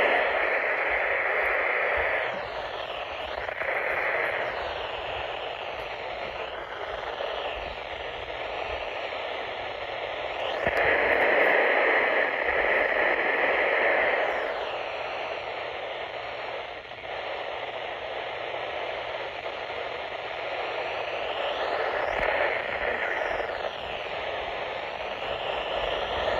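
Radio receiver hissing with static and picking up no clear signal, with faint whistling tones sliding up and down. The hiss swells louder for a few seconds near the middle.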